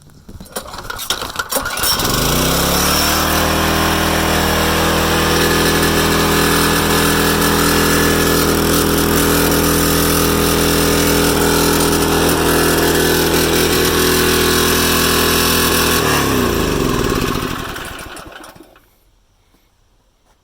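Generac pressure washer's small gas engine, fitted with a new carburetor, pull-started and catching within about two seconds, then running at a steady speed. Near the end it is shut off and spins down, its pitch falling away over a couple of seconds.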